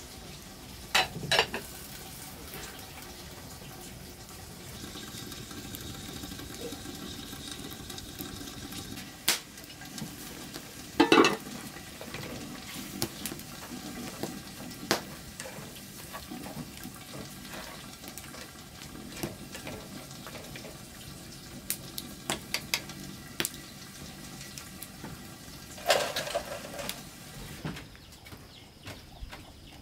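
Food cooking in a metal pot over a wood fire with a steady sizzle, stirred with chopsticks, with scattered sharp clinks and knocks of utensils and lids against the pots; the loudest clatter is about eleven seconds in.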